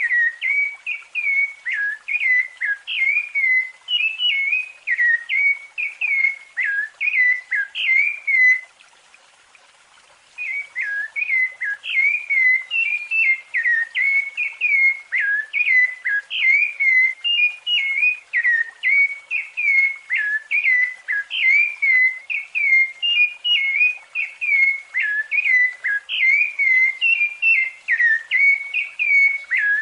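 Rufous-bellied thrush (sabiá-laranjeira) singing its flute-like 'flauteado' song: a quick, continuous run of short whistled notes. The song breaks off for under two seconds about nine seconds in, then resumes.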